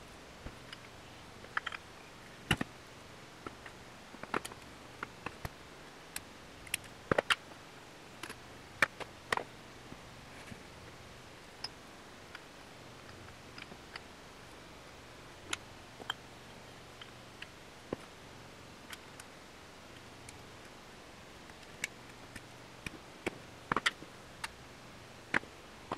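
Scattered clicks and clinks of metal engine parts (pistons, wrist pins, connecting rods) being handled and set down on a metal workbench during piston-to-rod assembly, some with a short ring.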